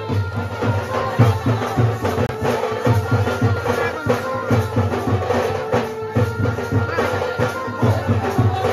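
Music with a steady drum beat and sustained melodic tones over it.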